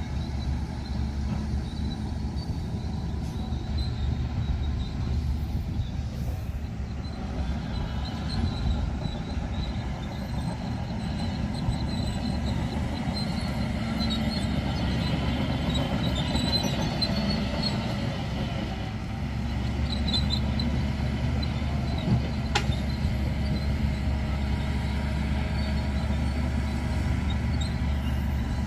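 Heavy diesel earthmoving machinery running steadily under load, a continuous low engine drone, with faint high squeaks in the middle and one sharp click late on.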